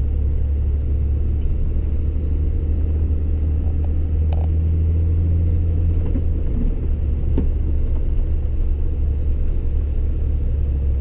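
Four-wheel-drive truck driving, a steady low drone of engine and road noise.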